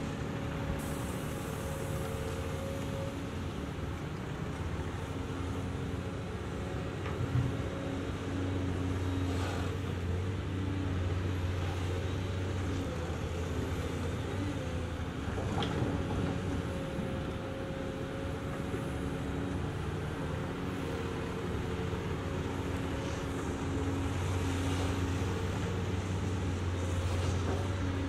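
Two Caterpillar excavators, a Cat 336 and a Cat 345, running their diesel engines under load as they dig and swing buckets of dirt, the engine note swelling and easing with each working cycle. A couple of single knocks, about seven seconds in and again near the middle, stand out over the steady engine sound.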